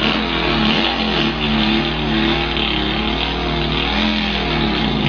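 A man's vocal impression of a Volkswagen engine: a steady, wavering buzzing hum made in the throat and lips, ending in a mimicked stall.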